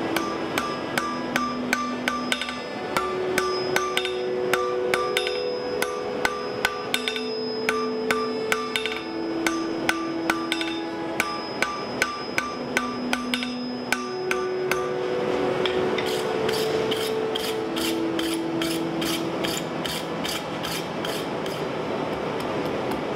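Hand hammer striking a red-hot steel bar on an anvil, about two to three blows a second, each blow ringing off the anvil; after about fourteen seconds the blows come quicker and lose most of the ring. Slow background music plays underneath.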